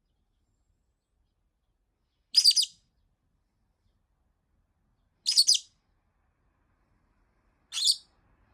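Pet lovebird giving short, high-pitched screeching calls, three in all, about two and a half seconds apart. This is part of a long bout of nonstop calling that the owner takes for frustration at not being let out to play.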